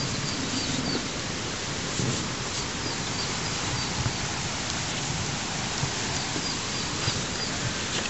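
Steady outdoor hiss with a small bird chirping in short runs of high notes, and a few soft knocks and rubs of bread dough being kneaded by hand in a plastic cooler.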